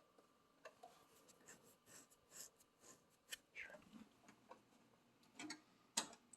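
Near silence with faint scattered clicks and rustles of small handling noises, and one sharper click about six seconds in.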